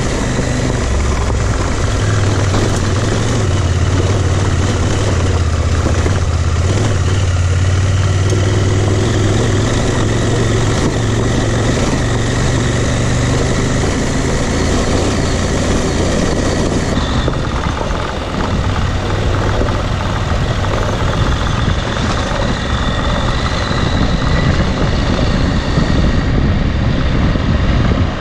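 Dual-sport motorcycle engine running steadily under way, mixed with a steady rush of wind noise on the microphone. The low engine note is strongest for the first half and eases off after about halfway.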